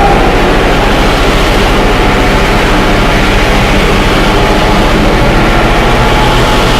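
Train running: a loud, steady rumble and rushing noise with no breaks.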